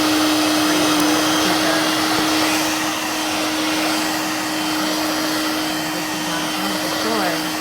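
Dirt Devil Vibe corded stick vacuum running at full speed: a steady motor whine over loud airflow hiss.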